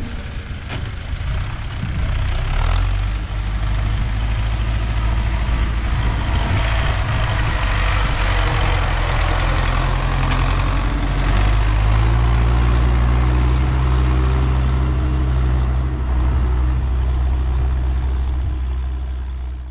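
Belarus MTZ 820.1 tractor's four-cylinder diesel engine running steadily under load as it pulls a three-furrow plough through the soil, getting louder as the tractor comes close and passes about halfway through.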